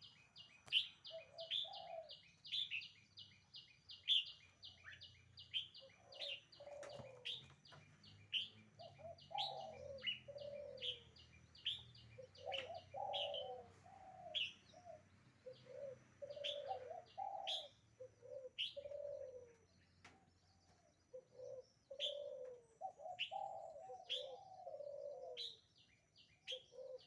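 Red-whiskered bulbul calling: short, sharp, falling high notes, a rapid run of them in the first several seconds, then more spaced out. A second, lower-pitched bird call repeats in phrases throughout.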